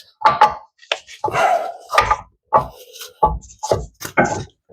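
A rear CV axle shaft being worked out of its hub and knuckle, knocking and clunking metal on metal about nine times, roughly twice a second, some knocks briefly ringing.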